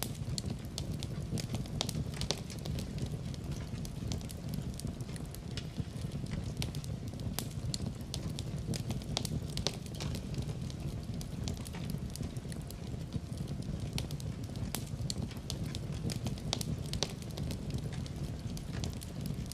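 Wood fire burning in a fireplace with a steady low rumble, crackling and snapping in frequent, irregular sharp pops.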